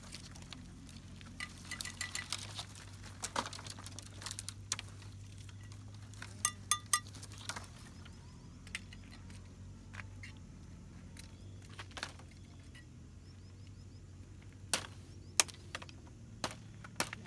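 Scattered light clinks and taps of tableware and utensils, a few with a short metallic ring, over a faint steady low hum.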